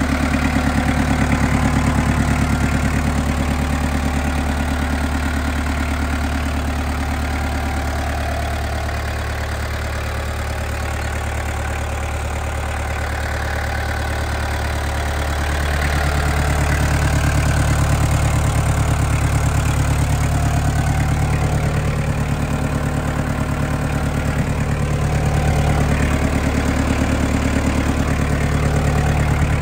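Yanmar FX32D compact tractor's four-cylinder diesel engine idling steadily.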